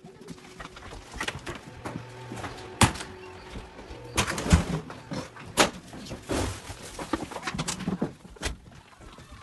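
Doors between sleeper-train carriages being opened and shut while passing from one carriage to the next: a run of sharp knocks and bangs with clatter in between, the loudest about three, four and a half and five and a half seconds in.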